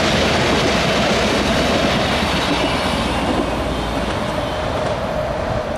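Diesel multiple unit train running past on the rails and moving away, a steady rumble of wheels with a hum that slowly fades.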